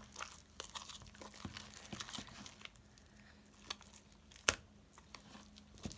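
Sticky glue-and-laundry-detergent slime being mixed and worked in a bowl: soft, faint sticky crackles and small ticks, with one sharper click about four and a half seconds in. The slime is still tacky, not yet fully activated.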